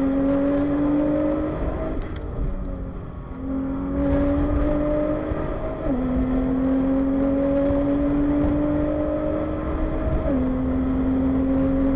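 Nissan R35 GT-R's twin-turbo V6 heard inside the cabin, pulling hard with a steadily rising pitch. It eases off briefly about two seconds in, then accelerates again, the pitch dropping sharply with upshifts about six and ten seconds in.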